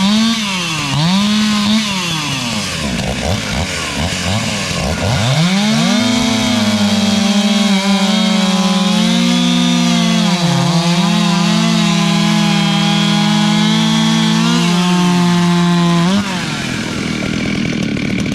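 Two ported Stihl two-stroke chainsaws, an 034 and an 036, running at high revs while cutting through a log together, their engine pitch sagging and recovering under the load. About 16 seconds in, the loudest engine tone drops away and the sound gets quieter, while a saw keeps running.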